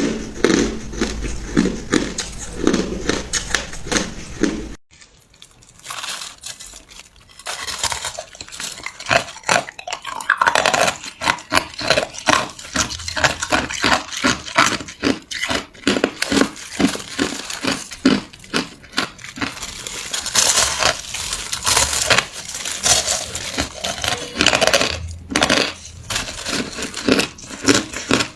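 Hard ice being bitten and chewed close to the microphone: a dense, irregular run of sharp crunches and cracks, with a short, quieter break about five seconds in.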